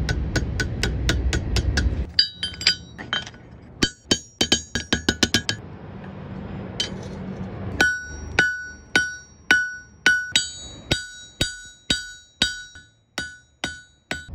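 Hammer blows on red-hot steel on an anvil, each strike followed by a bright ringing tone from the anvil. Quick runs of blows give way, past the middle, to slower strikes about two a second, with a low rumble under the first two seconds.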